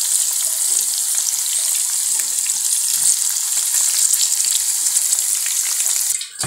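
Marinated beef frying in hot mustard oil in a pan: a steady, loud sizzle with the occasional knock of stirring. The sizzle falls away just before the end.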